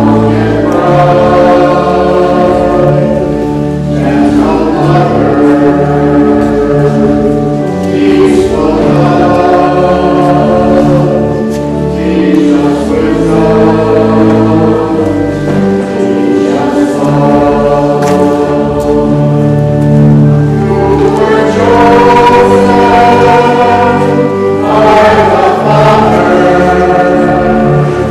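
Church choir singing a hymn in sung phrases a few seconds long, over steady held low notes.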